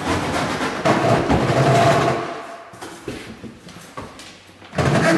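Freestanding stainless-steel Westinghouse dishwasher being slid across a tiled floor, a scraping rumble for about two seconds, then quieter with a few knocks, and another short scrape near the end.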